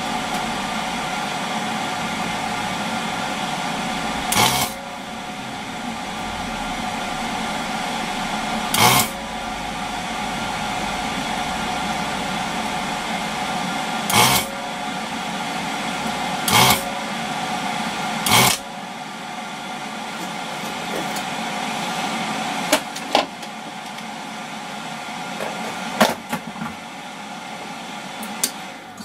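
Vacuum desoldering gun running with a steady whirring hiss while desoldering a circuit-board module's pins, with about five short sharp clicks spaced a few seconds apart. The low end of the whirr drops away about two-thirds in.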